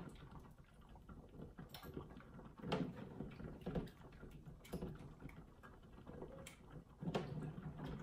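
Cucumbers being spooned out of warm pickling brine into a glass bowl: light, irregular clinks and knocks of the spoon and cucumbers against the glass bowl and the enamel pot.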